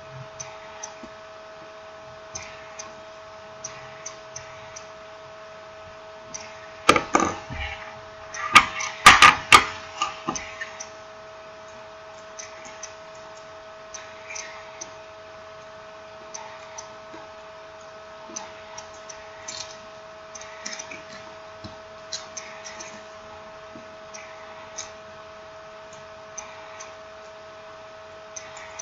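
Scattered light clicks and taps of small hard parts being handled, over a steady electrical hum, with a burst of louder knocks and clatter about seven seconds in and again around nine to ten seconds in.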